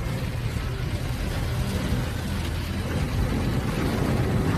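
Steady noise inside a car driving through heavy rain: the engine and tyres on a wet road, with rain hitting the windscreen.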